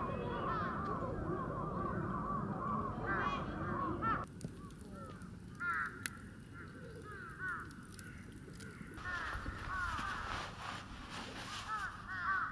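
Birds calling over and over in a dense run of short arching calls. A low rumble underneath cuts off suddenly about four seconds in.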